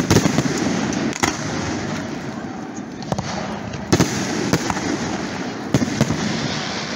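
Aerial fireworks display, with shells bursting in sharp bangs over a continuous crackle. The biggest bangs come at the very start, about a second in, around four seconds, and near six seconds.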